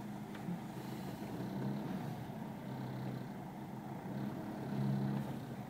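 Engine hum and road noise heard from inside a vehicle's cab while it drives slowly, a steady low drone that swells and eases slightly.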